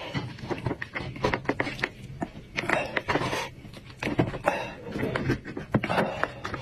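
A small knife scraping and clicking against bone as it cuts meat from a roasted goat's head on a wooden board, in an irregular run of sharp clicks and short scrapes.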